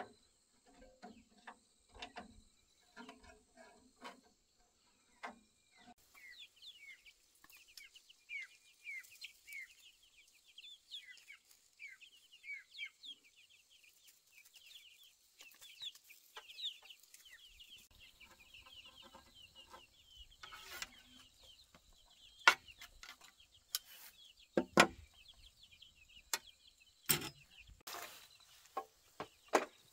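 Chickens clucking, then a long run of rapid high chirps, with several loud sharp knocks in the second half.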